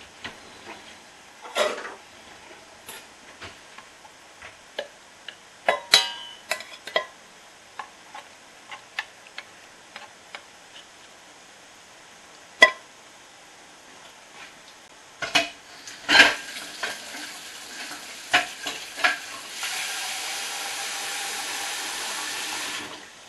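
Metal spoon stirring thick cooked lentils in a slow-cooker pot, with scattered clinks and scrapes against the pot, the sharpest around the middle. A steady rushing noise comes in for the last three seconds and cuts off suddenly.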